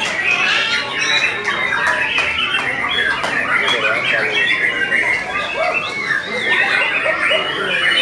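White-rumped shamas singing in competition cages, several at once: a dense, unbroken jumble of fast whistles, trills and chattering phrases.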